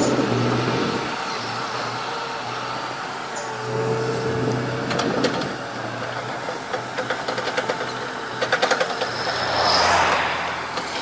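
Volvo crawler excavator's diesel engine running as the machine crawls on its steel tracks. A run of quick clanks and rattles from the tracks comes in the middle, and the engine swells near the end.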